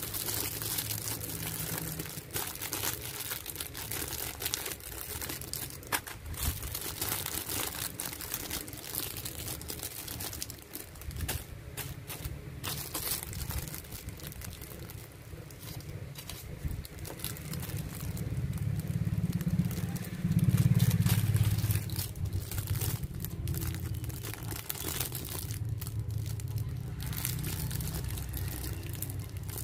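Clear plastic doll packaging crinkling and rustling in the hands, in many short irregular crackles. A low rumble underneath swells to its loudest a little past the middle.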